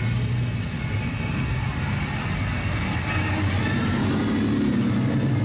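Old lowered Nissan Skyline sedans driving slowly out past the camera at low revs, their engines and exhausts making a steady deep note. One car pulls away, then a second comes alongside and its note grows stronger near the end.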